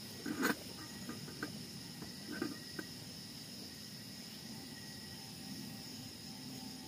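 Metal cooking pot knocking against a portable butane stove's pot supports about half a second in, followed by a few light clinks of its wire handle and lid. Insects chirp steadily behind.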